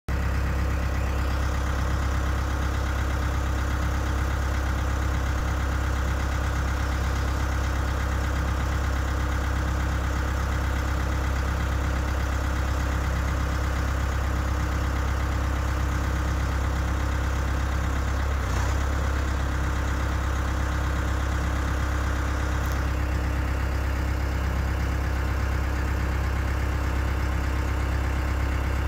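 SkyTrak 10054 telehandler's diesel engine running at a steady idle. A higher hydraulic whine joins about a second in and stops about three-quarters of the way through while the swing carriage rotates, with a short clunk shortly before it stops.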